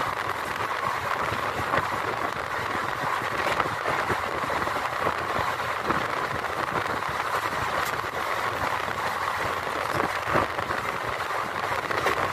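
Passenger train coach running at speed, heard from its open doorway: a steady rush of wheel-on-rail noise with a few scattered sharp clicks.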